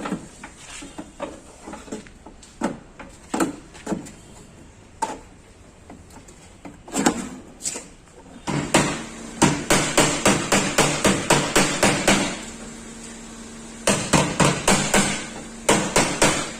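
Hand hammer beating out a dent in a Maruti 800's steel body panel: scattered single blows at first, then fast, even runs of about three strikes a second, twice. A low steady tone sounds under the fast runs.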